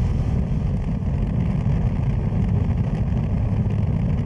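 1996 Honda Transalp's V-twin engine running steadily at road speed, mixed with wind and tyre rumble on the handlebar camera's microphone.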